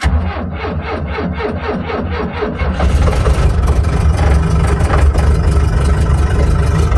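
Skid steer engine cold-started in winter: the starter cranks it over at about four strokes a second for nearly three seconds, then the engine catches and runs on steadily.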